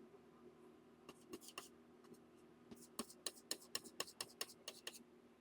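Faint, quick taps of a painting tool working paint on the canvas: three soft ones a little over a second in, then a run of about ten at roughly four a second, over a faint steady hum.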